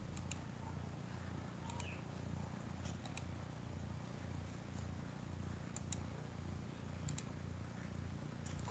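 A computer mouse clicked now and then, short sharp clicks in pairs, over a steady low hum.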